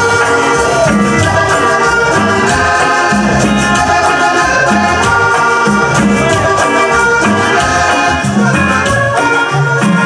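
Cumbia band playing live: accordion melody over electric bass, drum kit and congas, with a steady beat.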